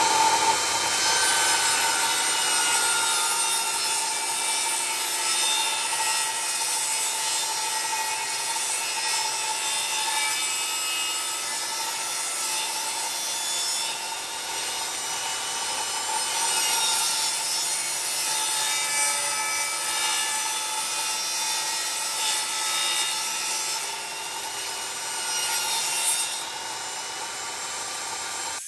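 Jobsite table saw running with its motor whining steadily while the blade cuts mitered edges on wooden shelf panels. The rasp of the blade in the wood swells and eases a little as each board is pushed through.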